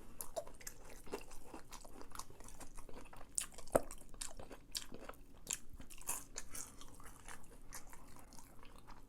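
Close-up chewing of a crispy, sauce-coated fried chicken tender: irregular wet crunches and crackles of the breading between the teeth, with a sharper crunch near the middle.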